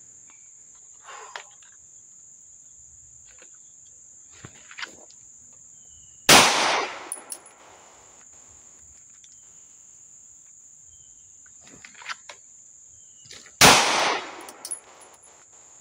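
Two single 9mm pistol shots from a CZ P-01, about seven seconds apart, each a draw-and-fire from the holster, each followed by about a second of echo. There are faint clicks between the shots, and a steady high insect buzz underneath.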